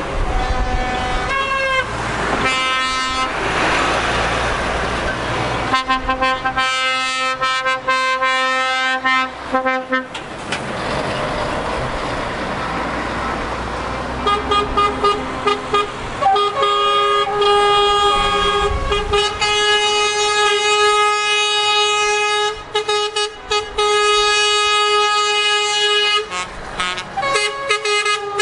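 Trucks in a convoy passing close by and sounding their horns: a few short toots, a held blast, then long horn blasts with several horns sounding together from about halfway on. Between the horns, lorry engines and tyres are heard going past.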